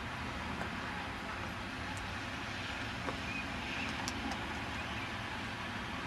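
Steady outdoor background rumble and hiss, with a few faint high ticks about two and four seconds in.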